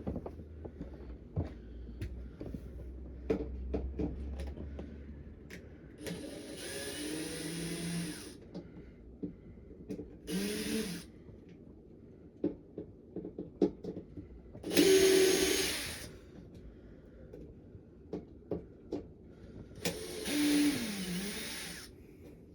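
Cordless power drill driving screws in four short runs, about 6, 10, 15 and 20 seconds in, its motor pitch sagging under load, with clicks and knocks of handling the air conditioner's panels between runs.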